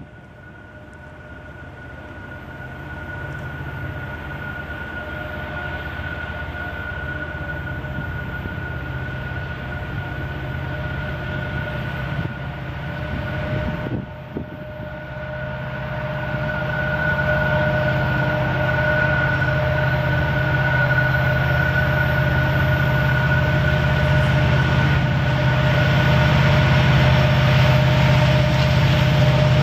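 Diesel locomotives of a CN freight train approaching, their low engine rumble growing steadily louder, with a steady high-pitched whine over it.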